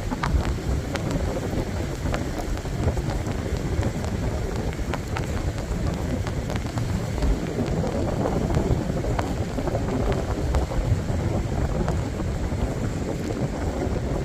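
Wind buffeting the microphone in a steady low rumble, with faint light ticks now and then.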